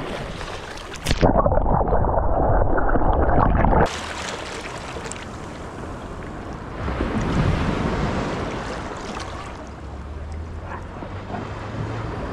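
Shallow sea water lapping and swishing at a calm beach, with wind on the microphone. From about a second in to about four seconds in there is a louder, muffled rush of water.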